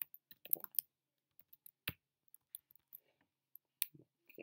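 Typing on a computer keyboard: irregular, scattered key clicks, with two sharper keystrokes about two seconds in and just before four seconds.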